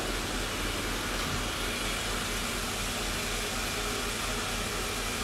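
Steady, even machine hiss with a low hum underneath, the running background of a gem-polishing workshop.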